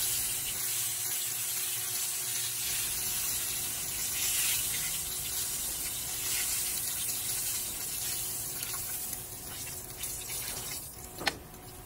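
Hot frying oil sizzling in a pan as batch-fried chicken pieces drain in a wire strainer above it, the hiss slowly dying down. A brief sharp clink near the end.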